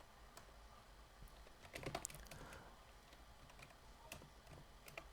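Faint computer keyboard typing: scattered keystrokes, with a quick run of them about two seconds in, as a network configuration line is typed.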